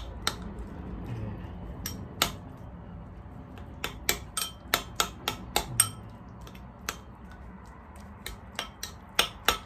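Metal spoon tapping, clinking and scraping against a ceramic bowl as it breaks up a clump of cooked minced pork. The sharp taps come irregularly, with a quick run of them in the middle and another cluster near the end.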